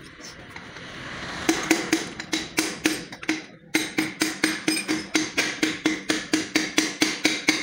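Rapid, even hammer taps, about five a second, with a short break about three and a half seconds in.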